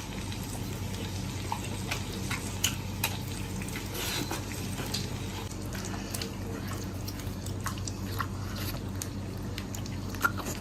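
Someone eating: scattered small clicks and smacks of biting and chewing over a steady low hum.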